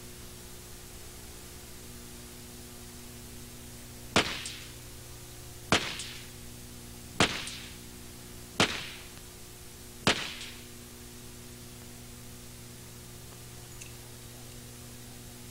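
.45 Auto semi-automatic pistol fired five times in slow, deliberate fire, about a second and a half between shots. Each shot is a sharp crack with a short tail, heard over a steady low hum.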